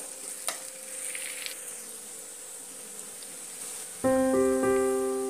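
Oil faintly sizzling in a pan, with one sharp scrape of a steel spoon half a second in. Then piano music comes in loudly about four seconds in.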